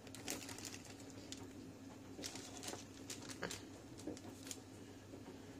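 Faint light taps and rustles of cookie dough rounds being set down on parchment paper on a baking tray, a few scattered soft clicks over a low steady hum.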